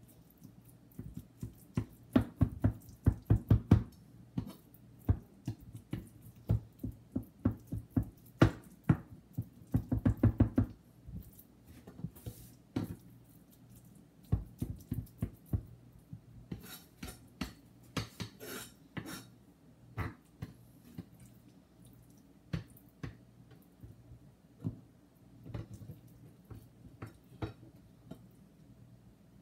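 Kitchen knife chopping raw tuna on a plastic cutting board, mincing it for negitoro: quick runs of knocks, the densest a few seconds in and about ten seconds in, between scattered single taps.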